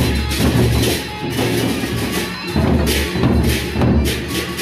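Sasak gendang beleq ensemble playing: large barrel drums beaten in a fast, dense rhythm, with bright high crashes over the drumming. The low drum strokes drop out briefly about halfway through.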